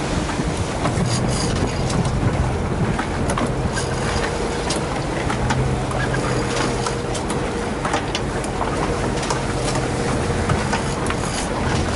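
A 225 hp outboard motor running steadily at low speed, a constant low hum under water and wind noise, with scattered short clicks and knocks.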